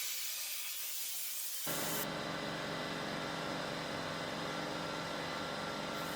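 A steady hissing noise from a small power tool, joined about one and a half seconds in by the even hum of its electric motor, which then runs steadily.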